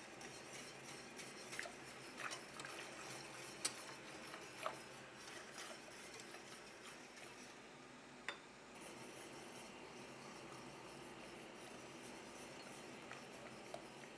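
Faint scraping and light clinking of a stainless steel wire whisk stirring a creamy sauce in a steel pot, with a few sharper clinks of the wires against the pot.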